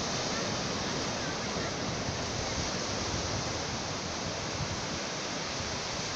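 Sea surf breaking and washing up a flat sandy beach: a steady rush of waves.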